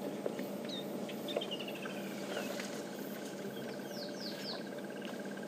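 Bush ambience of birds and insects: several quick descending whistled calls and a fast, even trill over a steady low hum, with two faint knocks in the first second and a half.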